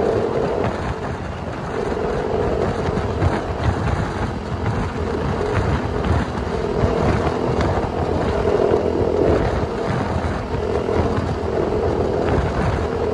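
Husqvarna motorcycle cruising at a steady highway speed: a continuous engine drone mixed with wind rushing over the microphone, the hum swelling and fading every second or two.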